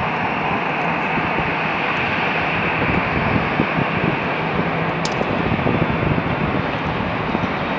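Distant Boeing 737-800's CFM56 jet engines heard as a steady rushing noise as it touches down and rolls out, swelling a little midway.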